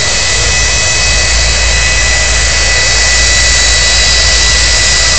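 Jet-powered semi truck's jet engine running loud and steady, a high whine over a rushing noise with a low rumble underneath.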